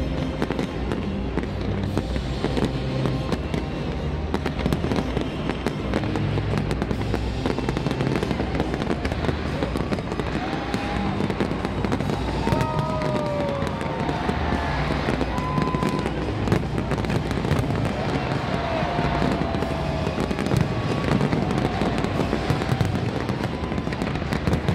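Fireworks display going off continuously: dense crackling mixed with repeated low booms.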